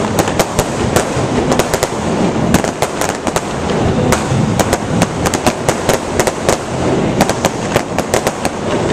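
Aerial fireworks going off in a dense barrage: many sharp bangs and crackles every second over a steady low rumble of shell bursts.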